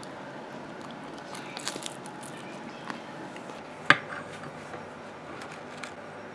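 Quiet room tone with a few light clicks and knocks from handling things on a kitchen counter, the sharpest a single knock about four seconds in.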